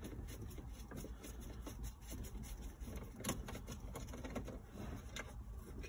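Small hand ratchet clicking in quick, uneven runs while a 7 mm dash-panel bolt is backed out, with two louder clicks about three and five seconds in.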